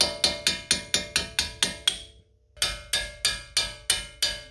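Rapid hammer taps on a steel chisel, about four a second and each ringing, in two runs with a short break about two seconds in. The chisel is knocking a seized bearing snap ring loose in the bore of a steering knuckle.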